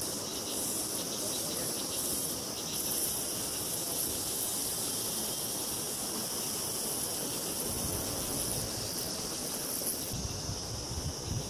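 Steady high-pitched buzzing of insects, a chorus that swells and fades slightly, with a few low thumps near the end.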